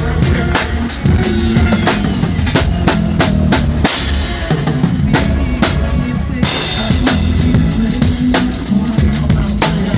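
Live drum kit played fast and busy in a band groove, with kick, snare and rimshots over a bass line. Cymbal crashes ring out about four seconds in and again at about six and a half seconds.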